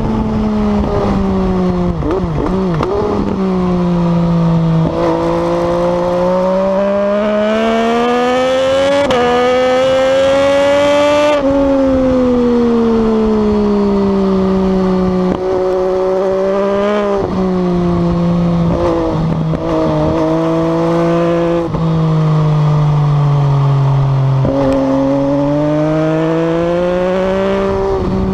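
MV Agusta Dragster 800's three-cylinder engine under hard riding: revs climb under throttle, drop sharply at each gear change, and sink as it slows, with quick throttle blips on the downshifts.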